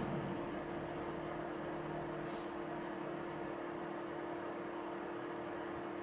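Steady electrical mains hum with a faint hiss, and one faint tick about two and a half seconds in.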